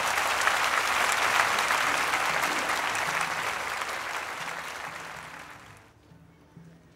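Crowd applauding, dense clapping that slowly fades out and dies away about six seconds in.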